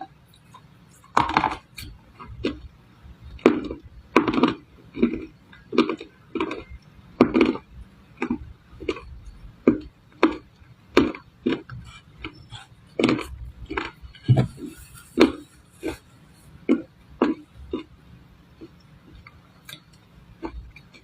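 Dry edible clay crunching as it is chewed close to the microphone: a long series of crisp crunches, one or two a second, loudest and fullest in the first half and thinner and lighter later on.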